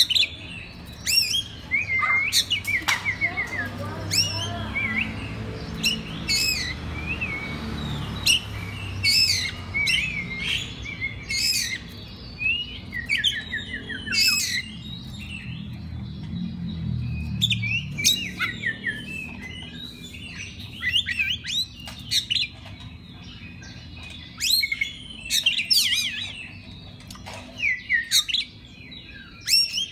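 Oriental magpie-robin (kacer) singing a long, varied run of quick chirps and whistled phrases, with a low hum underneath in the first half.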